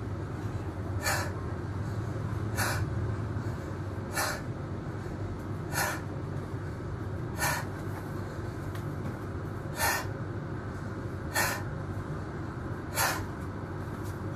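A man breathing hard from exertion during burpees, with a sharp, forceful exhalation about every one and a half seconds, over a steady low hum.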